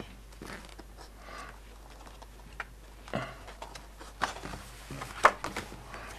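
Pages of a stapled paper catalogue being handled and turned: scattered soft rustles and taps, the sharpest about five seconds in as a page is turned and pressed flat.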